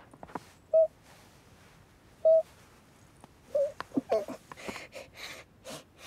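Cartoon cat's voice, human-voiced: two short mews about a second and a half apart, then from about halfway a quicker run of grunts and breathy huffs as the cat wriggles out from under a stuffed draught excluder.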